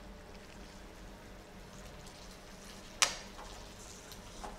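Chicken pieces cooking in sauce in a pan, with a faint, steady sizzle. About three seconds in, a metal utensil strikes the pan with one sharp click, followed by a few light clinks.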